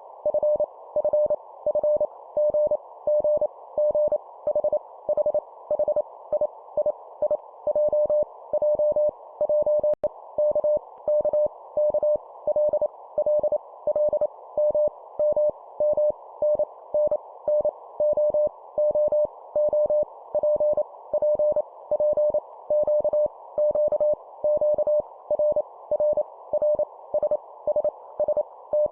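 Morse code (CW) practice tone keyed at 25 words per minute, a single steady pitch switched on and off in short dots and longer dashes, sending letters that are each repeated three times. A faint steady hiss sits under the tone between marks.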